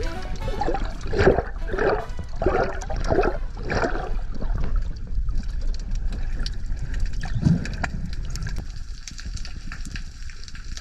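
Water sloshing and gurgling around a diver swimming at the surface, heard through an underwater camera housing. It comes in quick splashy pulses about every half second for the first four seconds, then settles into a softer, steadier wash.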